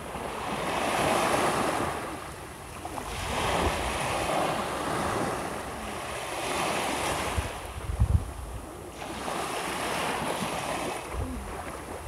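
Small waves breaking and washing up a sandy beach, the surf hiss swelling and fading about every three seconds. Wind buffets the microphone with brief low rumbles about eight seconds in.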